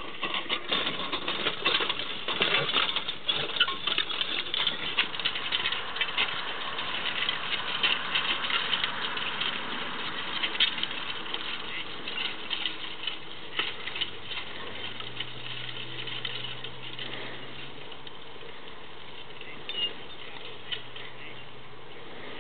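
Horse-drawn disc harrow rattling and clanking, its steel discs cutting through freshly plowed soil. The clatter is densest over the first ten seconds or so and thins out later as the team draws away.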